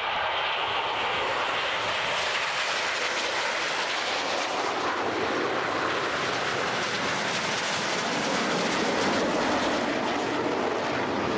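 Formation of Aermacchi MB-339 jet trainers with Rolls-Royce Viper turbojets flying over, a steady rushing jet noise that grows a little louder toward the end as the formation draws nearer.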